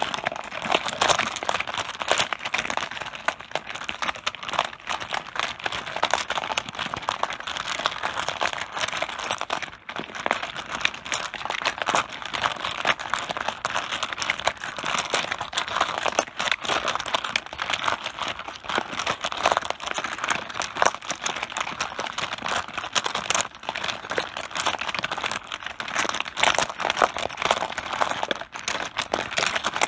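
Mahjong tiles clattering against each other on a tabletop: a dense, continuous run of small hard clicks with no pause.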